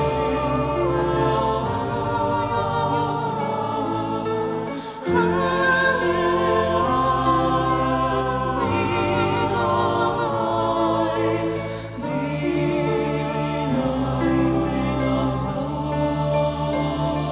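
Choir singing a slow sacred piece in long held chords over a deep sustained bass, the upper voices with vibrato; the chord changes about five seconds in and again about twelve seconds in.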